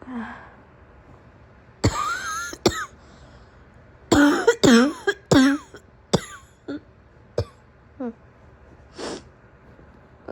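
A woman coughing: one harsh cough about two seconds in, then a burst of three loud, throaty coughs around four to five seconds in, followed by a few faint clicks and one short breathy sound near the end.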